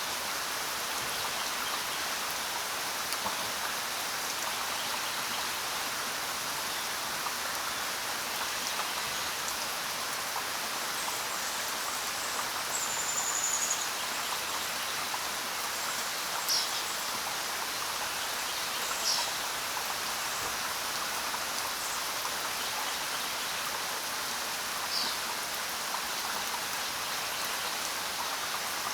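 Steady rain falling, with a few short high bird chirps now and then.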